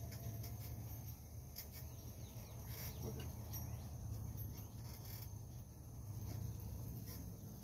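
Outdoor ambience: a steady low rumble with faint bird calls and insect sounds over it, and a few light clicks.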